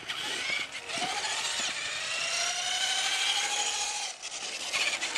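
Radio-controlled car's electric motor whining at speed, its pitch gliding up and then slowly down, easing off about four seconds in.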